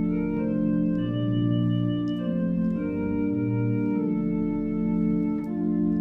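Allen digital organ playing a slow, sustained chordal hymn-tune arrangement, with held chords whose notes move step by step and deep bass notes coming in and dropping out several times.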